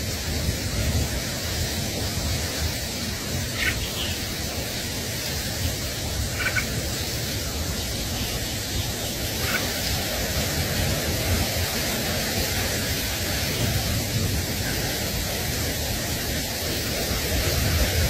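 Steady hiss with no pattern throughout. A few faint, very short high bird chirps sound about four, six and a half and nine and a half seconds in.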